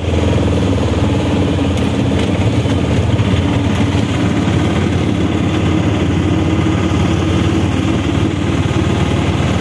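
Auto-rickshaw engine running steadily with a fast, even chugging, heard from inside the open cab while riding along.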